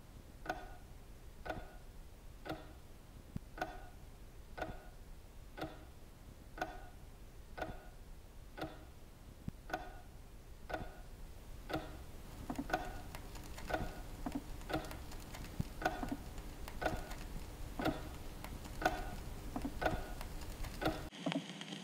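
Clock ticking steadily, about once a second. From about halfway, a second set of ticks falls between the beats and a faint hiss rises underneath.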